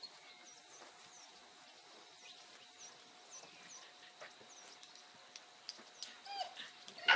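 Quiet outdoor background with faint high bird chirps repeating about every half second. Near the end a herding dog gives a short yelp, then one sharp, loud bark.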